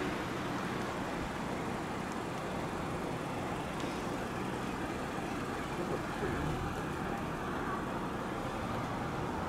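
Piper PA-46 single-engine light aircraft taxiing, its engine running steadily.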